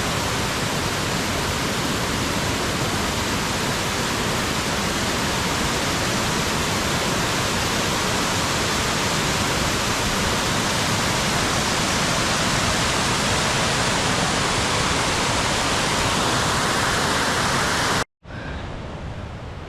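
Steady, loud rushing of fast mountain water close by. It cuts off abruptly near the end, leaving a much quieter outdoor hiss.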